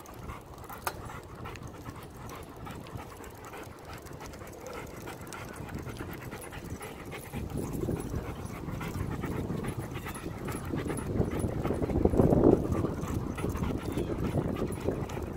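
German Shepherd panting as it runs alongside a bicycle, getting louder from about halfway through.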